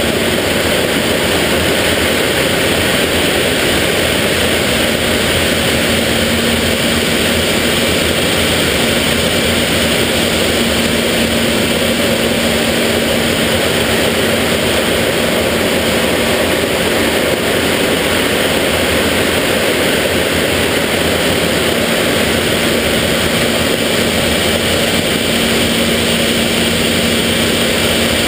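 BAC Jet Provost's Viper turbojet and the rush of air over the canopy, heard from inside the cockpit as a loud, steady noise with a steady low hum underneath.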